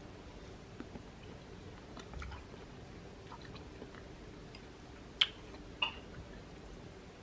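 Quiet household handling sounds: scattered soft clicks and taps, then two sharp ringing clinks of hard objects about half a second apart, over a faint steady hum.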